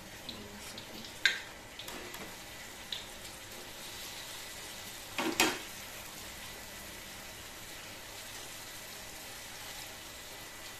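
Hot oil sizzling steadily in a wok as a batch of tempeh balls deep-fries. A few sharp knocks of a metal utensil on the wok sound over it, the loudest about five seconds in.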